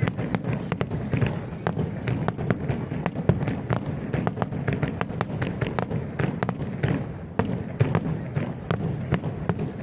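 Rapid barrage of aerial fireworks bursting: a dense run of sharp bangs and crackles over a continuous low rumble. It ends abruptly near the end.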